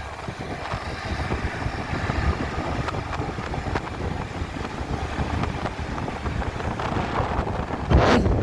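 Wind buffeting a phone's microphone and steady road and traffic noise while riding a motor scooter through city streets, getting louder about eight seconds in.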